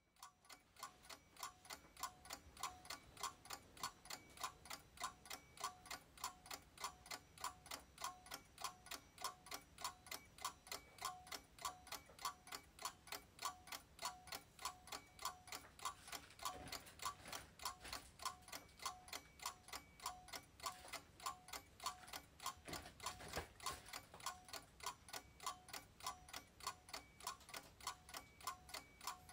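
A clock ticking steadily and evenly, about two ticks a second, with an alternating tick-tock.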